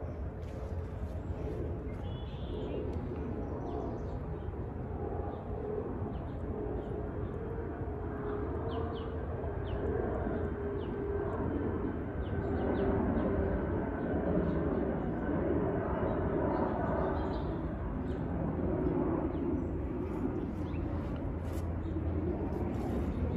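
Steady low outdoor rumble with short, faint, high bird chirps scattered through it.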